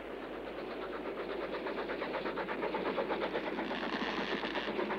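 Cartoon sound effect of a steam locomotive running hard, a rapid, even chuffing clatter that grows steadily louder.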